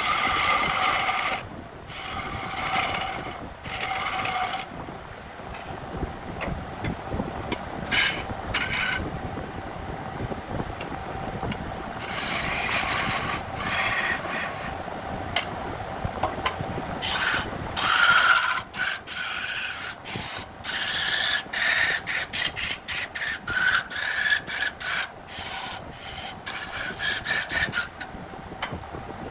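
Wood lathe running with a steady hum while a turning tool cuts into the spinning burl in repeated scraping bursts, the cuts getting shorter and quicker in the second half.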